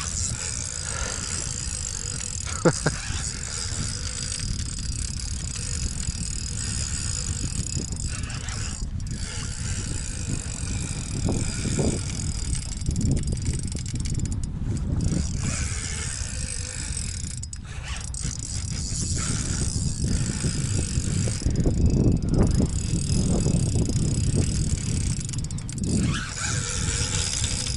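Spinning reel being worked under heavy load while fighting a large taimen that holds its ground, over a steady low rush.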